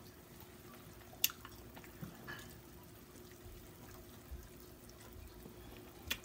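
Faint wet mouth sounds of someone eating sauce-covered fried chicken: smacks and sharp clicks as she bites and chews, a strong click about a second in and another near the end, over a faint steady hum.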